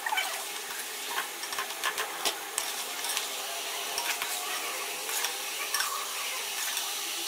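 Hot ghee sizzling steadily in a metal pan as fried chicken pieces are lifted out with a wire-mesh strainer, with scattered light clicks and scrapes of the strainer and spoon against the pan.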